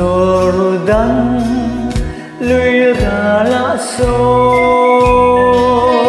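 A voice singing a slow Mizo song with instrumental backing and a low beat about once a second, ending on a long held note.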